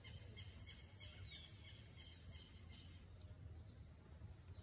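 Near silence, with faint high chirps scattered through it.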